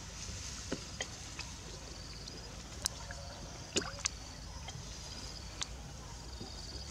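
Water sloshing and splashing in a plastic tub as a baby macaque swims and thrashes in it. Several sharp clicks are scattered through it, the loudest two close together about four seconds in.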